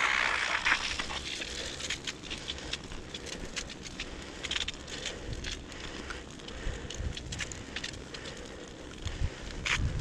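Bicycle tyres rolling over crunchy, frozen snow, giving a run of irregular crackles and crunches over a low rumble. A hiss fades out about a second in.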